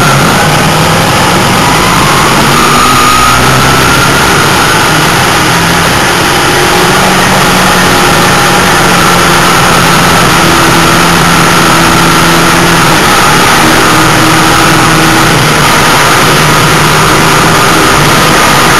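Race car engine at racing speed, heard from inside the cockpit: very loud and constant, its pitch rising and falling as the driver lifts and gets back on the throttle.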